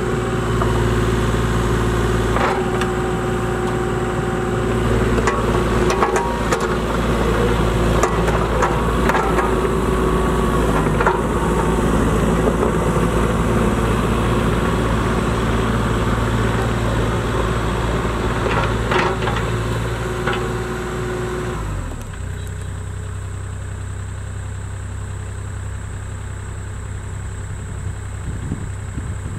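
Kubota KX040-4 mini excavator's four-cylinder diesel engine running under load as the machine tracks and works its boom, with a steady whine and scattered clanks. About 22 seconds in, this gives way suddenly to a quieter, steady engine idle.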